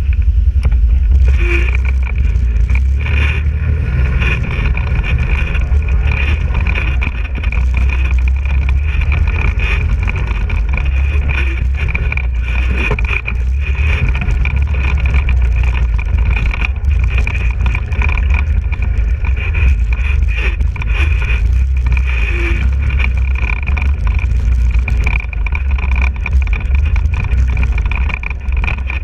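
ATV engine running steadily while the quad is ridden, with wind buffeting the microphone.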